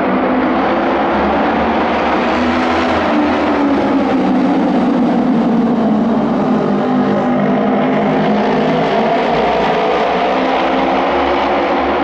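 A pack of auto race motorcycles, 600 cc twin-cylinder racing machines, running at full race speed, several engine notes overlapping and slowly rising and falling in pitch as the bikes sweep through the turn and past.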